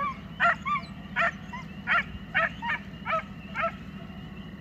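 Pack of Walker coyote hounds barking on a running coyote's trail, about eight short barks at roughly two a second that stop about three and a half seconds in. A steady low hum runs underneath.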